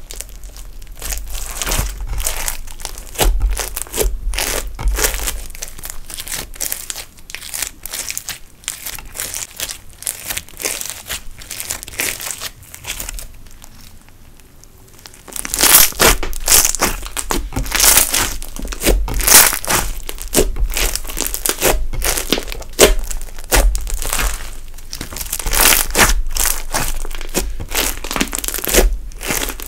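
Bead-filled slime being pressed, folded and stretched by hand on a stone countertop: a dense run of small sticky clicks and crackles, quieter for a couple of seconds about halfway through, then louder again.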